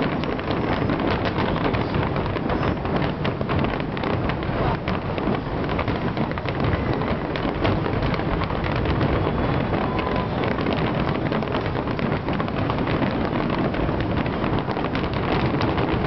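A dense barrage of aerial firework shells bursting together: a continuous crackle of many sharp cracks with deep booms mixed in, at an even loudness.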